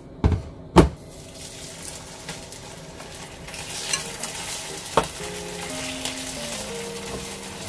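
Marinated beef short ribs sizzling in a nonstick frying pan, the hiss building as the meat heats. There are two sharp knocks near the start, and a few clicks of metal tongs against the pan as the ribs are turned.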